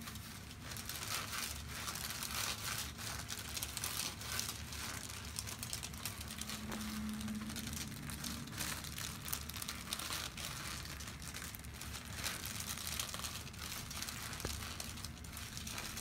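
Hands massaging a person's neck and jaw, rubbing over skin and hair against the headrest cover: a continuous soft, irregular crinkling and rustling.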